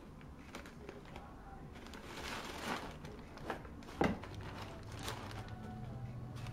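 Crumpled brown packing paper rustling and crinkling in bursts as a cat paws and burrows through it inside a cardboard box. There is a longer rustle a couple of seconds in, and a sharp thump against the box about four seconds in.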